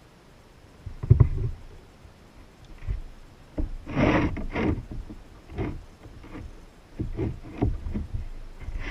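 Kayak paddle strokes in the water: uneven splashing strokes that start about a second in, after a quiet moment, with the strongest near the middle.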